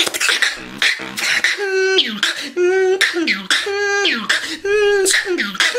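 Beatboxing: a string of short, pitched whistle-like notes, each ending in a quick downward slide in pitch, alternating with sharp percussive hits and hissing snares in a steady rhythm.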